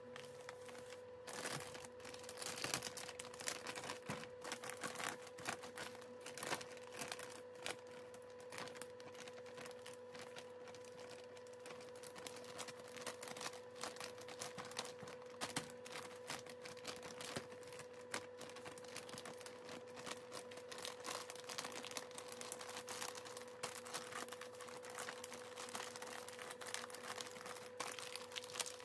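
Polypropylene mushroom grow bags filled with grain crinkling and crackling as they are folded and pressed flat by hand to squeeze out the air, with a steady hum underneath.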